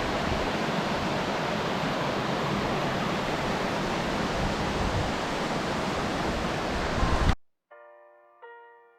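Steady rushing of a waterfall mixed with wind on the microphone, which cuts off suddenly about seven seconds in. A few slow piano notes follow near the end.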